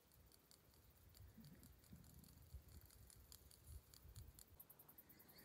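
Near silence: faint scattered small ticks and a low rumble of background noise.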